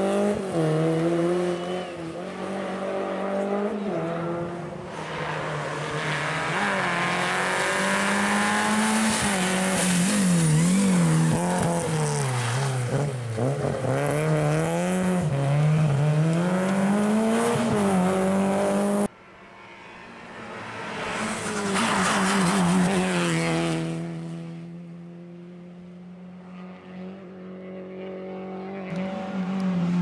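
Renault Clio RS N3 rally car's four-cylinder engine revving hard, its pitch climbing and dropping repeatedly through gear changes and lifts, with tyre noise. About two-thirds of the way through the sound cuts abruptly to another car's engine swelling as it approaches, then holding a steady note that rises again near the end.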